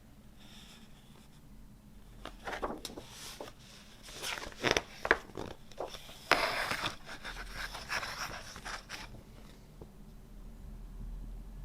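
Vinyl LP packaging being handled: paper and cardboard rustling, sliding and scraping, with a few sharper clicks, from about two seconds in until near the end.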